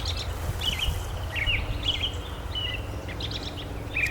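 Several small birds chirping and trilling in short repeated phrases, over a steady low rumble.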